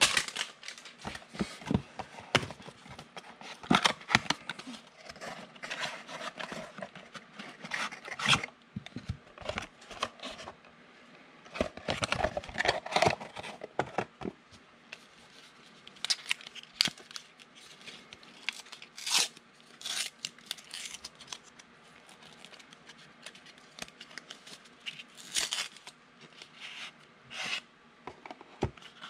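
Mosaic football card box and packs being opened by hand: wrappers tearing and crinkling in irregular bursts, with clicks and scrapes of handling the cards.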